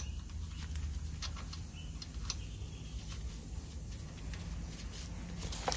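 Faint, scattered light clicks and taps as a nut is threaded by hand onto an air disc brake chamber's mounting stud, over a low steady hum.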